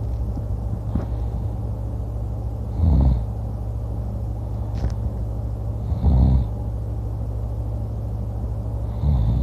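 A person snoring loudly while asleep, one snore about every three seconds, three in all, over a steady low hum.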